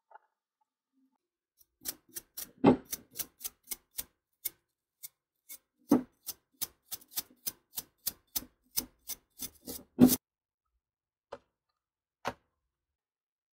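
A series of irregular sharp clicks and taps, a few a second, with three louder knocks among them; the run stops about ten seconds in, followed by two single clicks.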